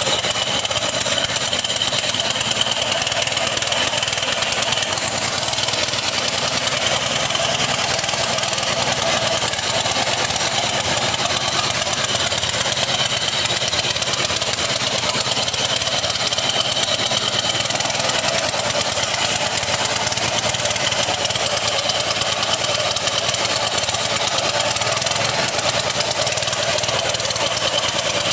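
Tsuzumi TX 200A single-cylinder, air-cooled four-stroke petrol engine on a power trowel, running steadily after being pull-started.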